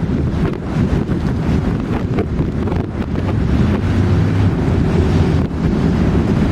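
Strong wind from the tornadic storm buffeting the camera's microphone: a continuous low rumble that grows slightly louder about three seconds in.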